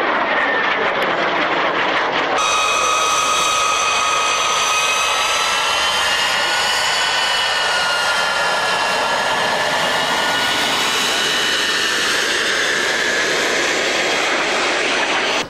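Small jet trainer's jet engine heard in flight overhead: a loud, steady rush with a high whine that wavers slowly up and down in pitch. It changes abruptly a couple of seconds in and cuts off suddenly at the end.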